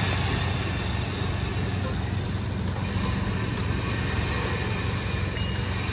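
Single-cylinder horizontal diesel engine running steadily at idle.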